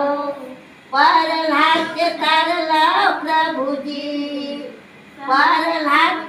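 Women singing a devotional bhajan with voices only and no instruments, in sung phrases with short breaths between them.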